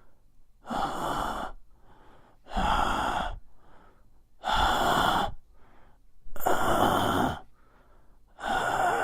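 A person breathing hard and noisily close to the microphone: five loud breaths about two seconds apart, each lasting under a second, with faint breaths between them.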